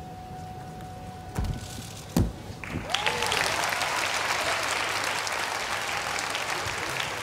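Two thuds of a balance-beam dismount, the louder one as the gymnast lands on the mat about two seconds in, then an audience applauding.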